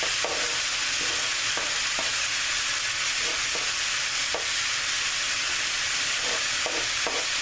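Ground beef and Italian sausage sizzling steadily in a skillet over high heat, with a spatula scraping and tapping in the pan every second or so.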